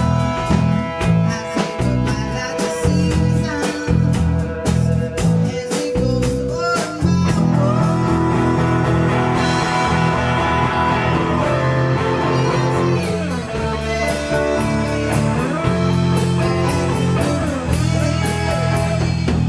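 Live rock band playing together: electric guitars, bass guitar and drum kit.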